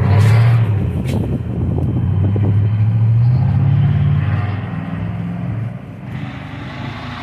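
Thunder: a sudden crackling crack, then a long low rolling rumble that swells and dies away after about six seconds.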